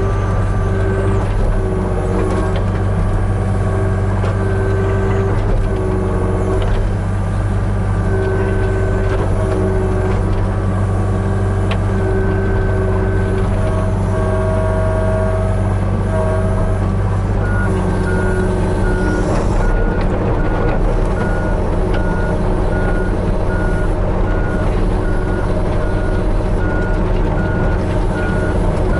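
Hitachi 35U mini excavator's diesel engine running steadily under load, with hydraulic whine that shifts in pitch as the boom and bucket controls are worked. From a little past halfway, a regular beeping alarm sounds over the engine.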